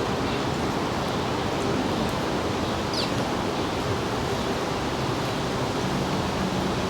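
Steady rushing background noise with a faint low hum, and a single short, down-slurred bird chirp about three seconds in.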